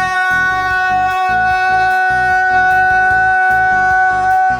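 A voice holding one long, steady high note, a drawn-out "Dinooo" shout, over backing music with a steady pulsing beat.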